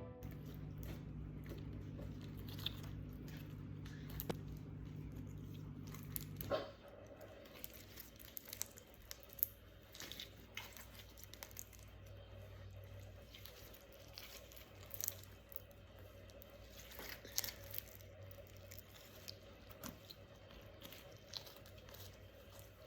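Faint, scattered clicks and crinkles of slime and plastic baubles being handled, over a low steady hum that stops about six and a half seconds in.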